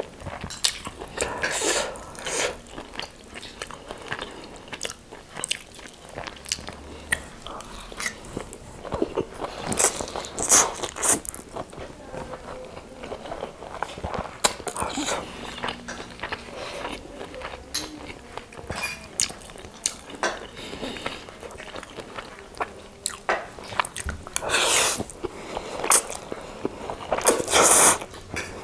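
Close-miked eating of prawn spaghetti: wet chewing and mouth clicks, with noodles slurped in several pulls of about a second each, the loudest near the end.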